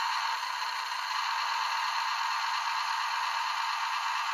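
Engine sound from the onboard sound module of a 1:87 micro RC truck, played through its tiny speaker as the truck drives: a steady, thin, hissy running sound with no bass.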